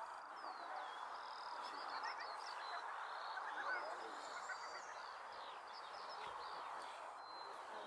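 Faint birdsong: many short chirps and warbles, over a soft, steady rushing noise.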